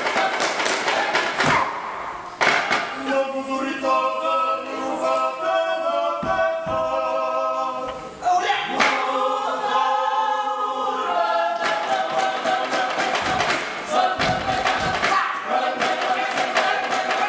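Fijian group chant for a vakamalolo sitting dance, many voices singing together and holding long notes. Sharp percussive strikes come in now and then.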